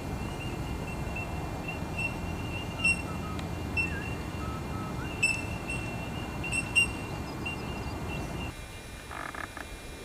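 Outdoor waterside ambience: a steady low noise with a persistent high-pitched chirping and a few short, faint calls and ticks. The low noise drops away about eight and a half seconds in.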